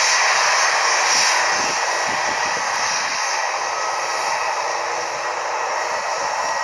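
Jet aircraft engines running: a steady rush of noise with a thin high whine, a little louder in the first second or so, then easing slightly.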